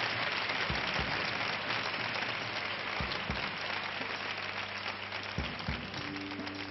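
Audience applauding, the clapping slowly dying away, with soft low thumps coming in pairs every couple of seconds. A steady held note from the band comes in near the end.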